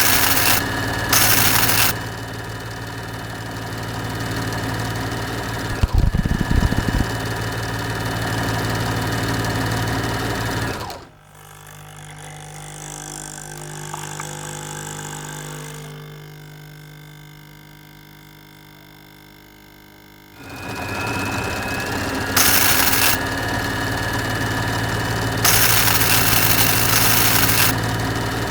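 Robot foley made with household items: a steady mechanical hum with short spells of hiss and a low thump about six seconds in. From about eleven to twenty seconds in the hum drops to a quieter, lower drone.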